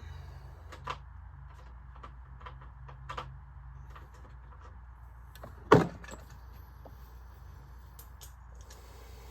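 Tools being handled on a workbench: a few light clicks and clinks, then one sharp, loud knock just before six seconds in, as of a socket or tool set down hard, over a low steady hum.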